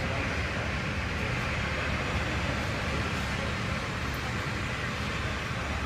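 Steady engine noise of a Boeing 737-800 taxiing in at idle power on its CFM56-7B turbofans, a constant rumble with a hiss on top.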